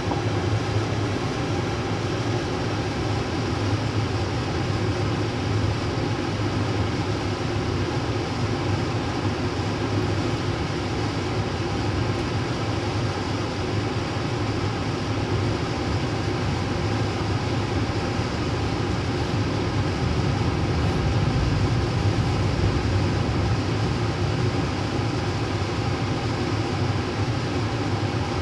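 Steady rolling noise of a Canadian National freight train's tank cars and covered hopper cars passing on the next track, heard from inside a moving passenger train's dome car. The wheels-on-rail noise of both trains blends into one even, low rumble.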